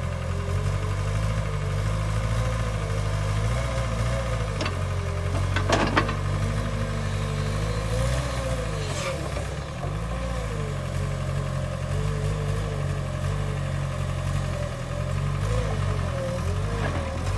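A JCB JS220LC tracked excavator's diesel engine running steadily, its pitch sagging and recovering a couple of times about eight to ten seconds in. A couple of sharp knocks come about five to six seconds in.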